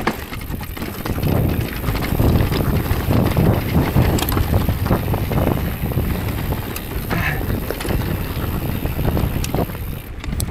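Wind buffeting the camera microphone while an Orbea Rise electric mountain bike rolls down a loose, rocky trail, its tyres crunching over stones, with many small knocks and rattles from the bike.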